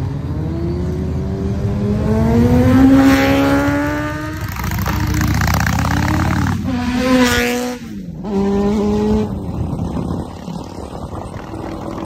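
Vehicle engine accelerating hard, its pitch climbing twice and dropping sharply at a gear change about eight seconds in, then running lower and fading.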